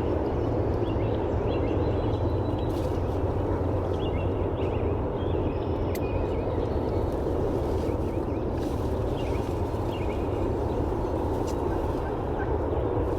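Wild turkeys calling in short, scattered calls over a steady low rumble.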